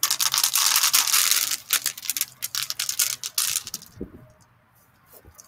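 Cooked dog food being scraped and knocked out of a metal cooking pot: a dense run of rapid scrapes and clicks that stops about four seconds in with a low thump.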